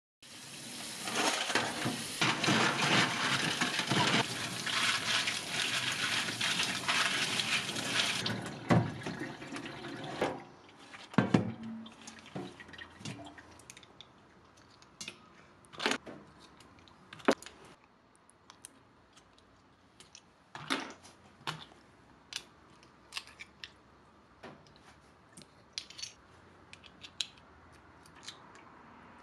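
Water splashing as cockles are scrubbed in a stainless steel bowl in the sink, fading out after about eight seconds. Then scattered short clicks as cooked cockles are pried open by hand over a steel bowl.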